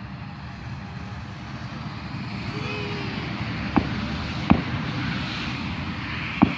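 Fireworks going off: three sharp bangs, two about a second apart in the middle and one near the end, over a steady noisy rumble that slowly swells.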